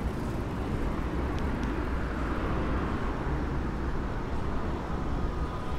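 Steady low rumble of road traffic, a constant wash of noise with no single vehicle standing out.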